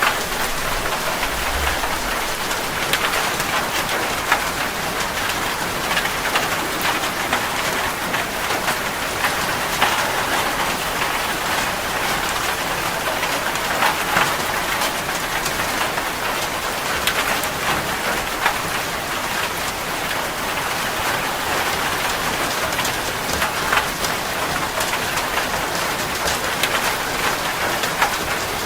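Heavy rain falling on a metal roof: a steady rush of rain with frequent sharp individual drop strikes.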